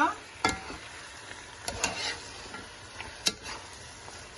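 Metal spoon stirring okra, spinach and beef in a sizzling pot, with a few sharp knocks and scrapes of the spoon against the pot over a steady frying hiss.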